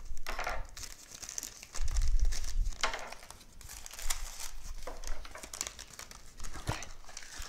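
Brown kraft-paper wrapping crinkling and tearing in irregular rustles as a small packet is unwrapped by hand, with a dull low bump about two seconds in.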